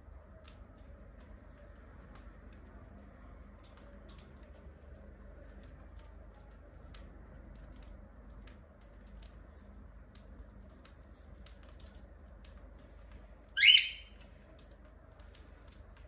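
Cockatiels pecking and husking seed, faint small clicks scattered throughout. Near the end, one cockatiel gives a single short, loud squawk that rises in pitch.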